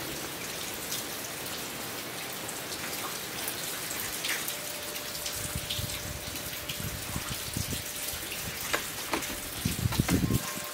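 Steady rain hiss with scattered drips. A few soft knocks come near the end.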